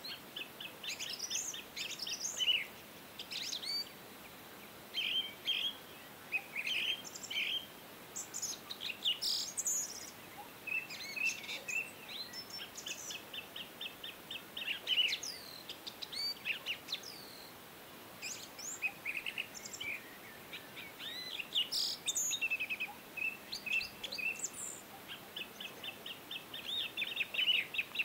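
Several small birds chirping and calling, with short whistled notes and, twice, fast trilled runs of rapidly repeated notes.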